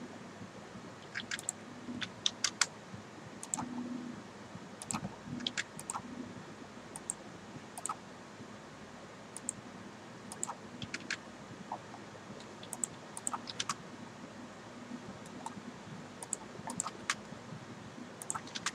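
Computer mouse and keyboard clicks, irregular and sharp, about one or two a second, over faint room noise.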